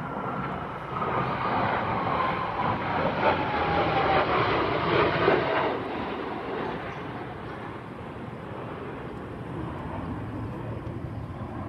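Blue Angels jet flying past: a rushing roar that swells to its loudest about five seconds in, with a whine sliding down in pitch as it goes by, then easing off into a fainter rumble.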